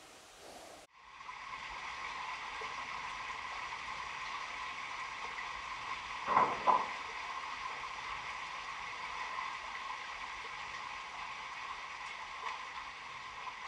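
Steady rushing hiss in a cave passage, with two sharp knocks close together about six seconds in and a fainter one near the end.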